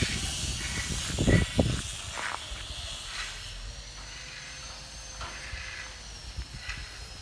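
Outdoor wind rumble and hiss on the microphone, with a few handling knocks about a second in and a faint thin steady tone near the middle.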